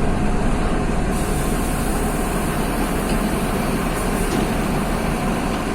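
Mercedes-Benz OF-1724 city bus's OM-926 LA six-cylinder turbodiesel running steadily with a deep, even drone.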